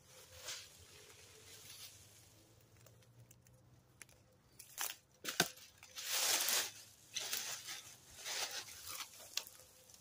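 Dry leaves rustling and crunching in irregular bursts, with a couple of sharp cracks about five seconds in and the loudest rustle just after.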